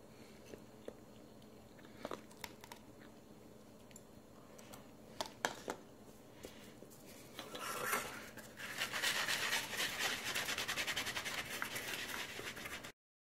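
Light clicks and taps of camp dishes and utensils being handled. About two-thirds of the way in, a fast, steady rubbing or scraping starts inside an anodized aluminum nonstick frying pan, then cuts off suddenly near the end.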